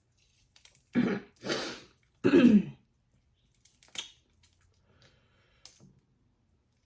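Close-up mouth sounds of eating crawfish: two loud, noisy slurps as the spicy juice is sucked from a crawfish head, then a short throat clearing. A few faint clicks of shell follow.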